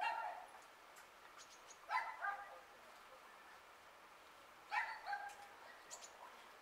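Three short animal calls, about two seconds apart, each a brief pitched cry that trails off, over a quiet background.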